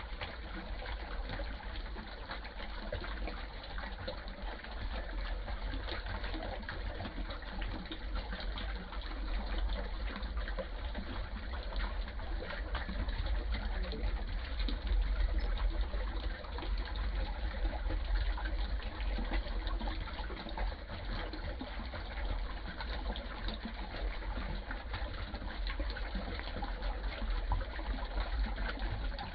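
Small rocky stream trickling and splashing over a little cascade between stones, a steady rush of water with a low rumble underneath.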